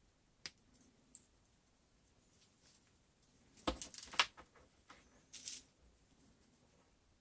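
Faint handling of USB cables and a small USB-to-serial adapter board on a desk: a few single clicks early on, then a cluster of clicks and rattles a little under four seconds in, the loudest part, and a short scrape about five and a half seconds in.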